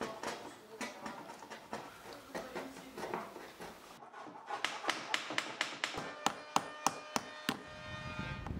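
Hand hammer striking inside a wooden boat hull: scattered light taps at first, then from about halfway a quick run of sharp blows, about three a second, each with a short metallic ring. Wind noise rises near the end.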